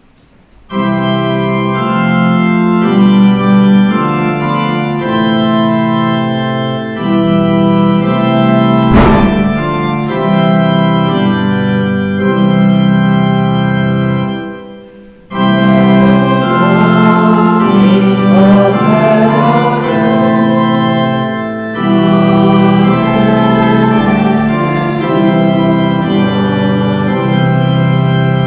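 Church organ playing a hymn tune in held chords, breaking off briefly about halfway through and then starting again.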